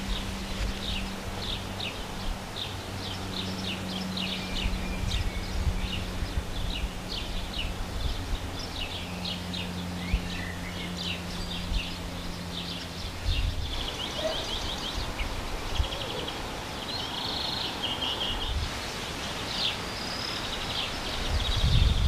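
Syrian woodpecker chicks begging from the nest hole as the parent feeds them: a continuous run of short, high chirps that turns into faster trilled bursts about two-thirds of the way through. Under it runs a low steady hum that stops about thirteen seconds in.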